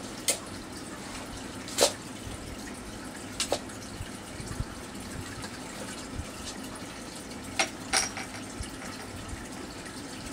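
Aquarium filter trickling water steadily, with about five short sharp clicks scattered through it, the loudest a little under two seconds in.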